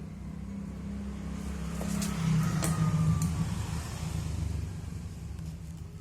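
A motor vehicle engine running with a steady low hum, swelling louder about two seconds in and then easing off again.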